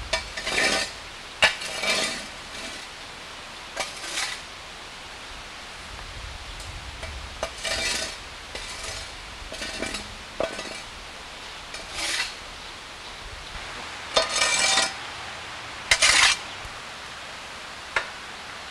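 Short, irregular scrapes and clinks of metal objects being handled, about fifteen in all, some ringing briefly. The loudest are a longer scrape near the end and a pair of clinks just after it.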